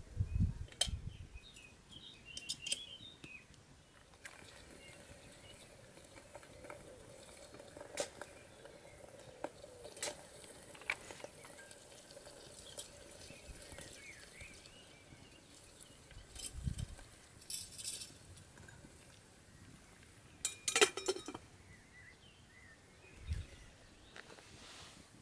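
Metal camp cookware and utensils being handled: scattered clinks and knocks, with a few dull thumps.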